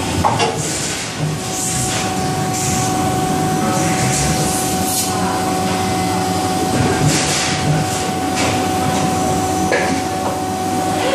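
Leifeld metal spinning machine cell running: a steady machine hum with a constant whine through it, and a few short hissing bursts now and then.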